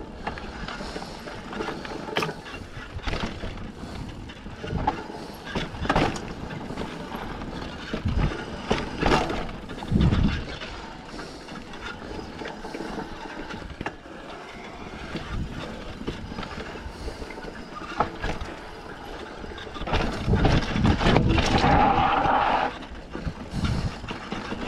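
Mountain bike rolling down a dirt forest trail: tyre noise on dirt with frequent sharp knocks and rattles from the bike over bumps. A louder stretch near the end carries a steady tone.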